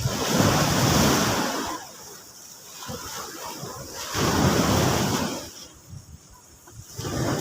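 Sea waves breaking and washing up the shore, a rushing wash of water that surges up and falls away about every three seconds.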